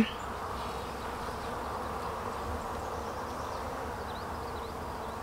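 Honey bees humming steadily, the buzz of a crowded colony around a frame lifted out of an open nuc.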